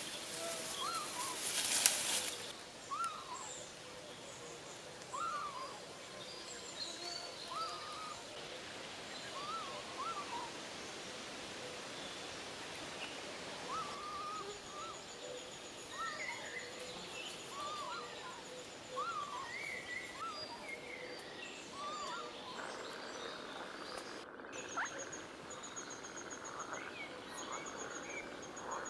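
Dry brushwood crackling and rustling for the first couple of seconds as it is gathered by hand. Then forest birdsong follows: a bird repeats a short call every second or two, and a high rapid trill joins about halfway through.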